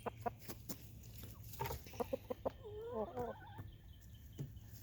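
Backyard chickens clucking softly, with a few short, wavering calls around the middle, among scattered short clicks.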